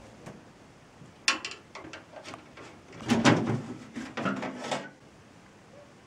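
Handling noise from a countertop microwave oven being shifted and turned on a table: a sharp knock about a second in, then a short run of clattering and scraping of its sheet-metal body for about two seconds.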